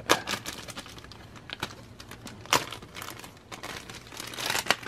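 Clear plastic parts bag crinkling and rustling as it is handled, with a few sharp clicks and taps.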